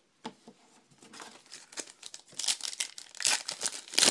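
Foil trading-card pack being crinkled and torn open by hand: an irregular crackling that grows denser and louder over the last two seconds, its sharpest crackle near the end.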